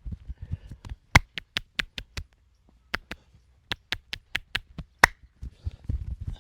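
Hands working a massage: fast, soft thumping on the body, broken by a run of about a dozen sharp smacks in quick groups. The loudest smack comes about five seconds in, and the fast thumping picks up again just after it.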